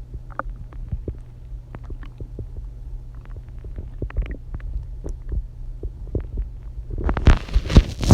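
Empty stomach growling and gurgling from hunger after a day without food: many short gurgles over a steady low hum, with a louder burst of noise from about seven seconds in.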